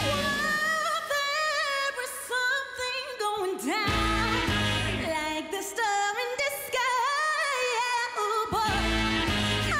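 A woman singing a pop song live into a microphone: a strong solo vocal with wide, sweeping runs in pitch, over a sparse band that drops in with short low hits.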